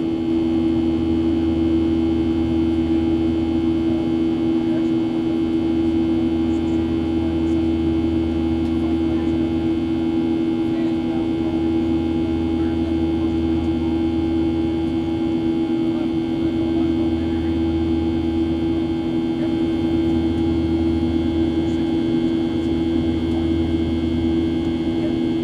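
Steady cabin drone of a Boeing 737's jet engines in the climb, heard from a window seat over the wing: a strong unwavering hum over a deep rumble that fades briefly every few seconds.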